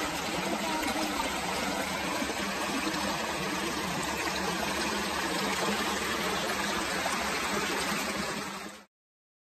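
Shallow stream running over rocks: a steady, even rush and trickle of water that fades out near the end.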